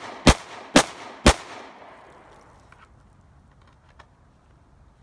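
Glock 19 Gen 4 9mm pistol firing three shots about half a second apart, each report echoing and fading over the next second or so, followed by a few faint clicks.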